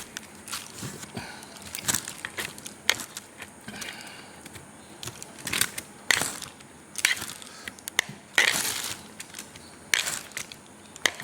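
Close-miked eating of kolo mee noodles: irregular slurps and chewing, with short sharp wet clicks and a longer slurp about eight seconds in.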